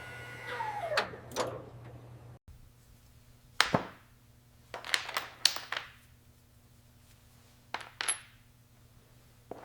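A few sharp metallic clinks and taps, in small clusters with quiet gaps between, each ringing briefly like small metal pieces striking a hard surface.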